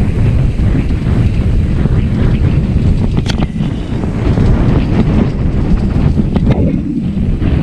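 Heavy wind buffeting the microphone over a low, steady rumble from riding a dirt bike along an enduro trail, with a couple of sharp knocks.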